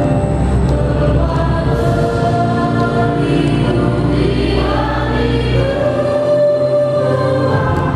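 A choir singing slow, sustained notes over instrumental accompaniment.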